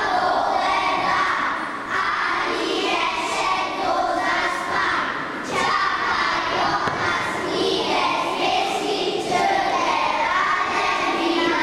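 A group of young children singing together in chorus, in phrases broken by short pauses.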